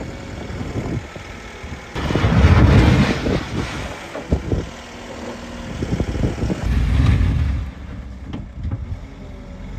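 Manitou telehandler's engine working under load as its bucket pushes and scrapes a heap of soil along a concrete pad. It surges louder twice, about two and about seven seconds in.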